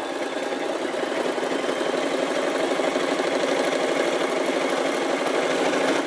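Brother JS-23 sewing machine stitching through fabric at a steady, rapid pace, then stopping abruptly at the end. It runs smoothly, without knocking or clicking, now that its binding shuttle hook has been freed.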